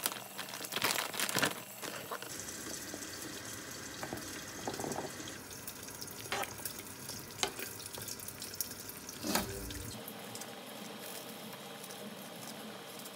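Steady rush of kitchen water, with a few sharp clinks of utensils against dishes.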